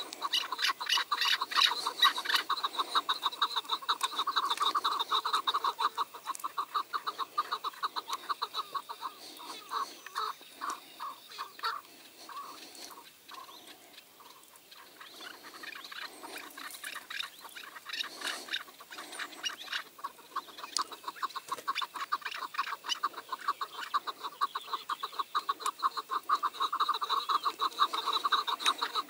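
Chukar partridges calling in rapid, repeated clucking series. The calls die down about halfway through and pick up again toward the end.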